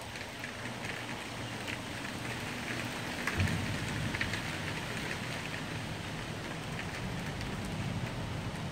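Rain falling and pattering on nearby surfaces, a steady hiss with many small drop ticks. A low rumble swells about three and a half seconds in and again near the end.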